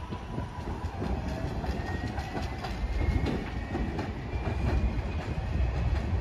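New York City Subway L train pulling away along elevated track: a steady low rumble with wheels clicking over rail joints, and a faint whine rising in pitch as it gains speed.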